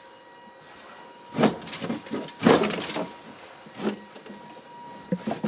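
Knocking, banging and rattling as the AC components under a Jeep Grand Wagoneer's dash are yanked and wrenched, with loud bangs about a second and a half and two and a half seconds in and more knocks near the end. The part is hung up on something and won't come free.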